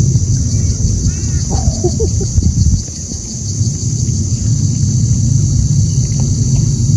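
Steady wind rumble buffeting the microphone, with a constant high drone of insects behind it. A few short calls chirp through about one to two seconds in.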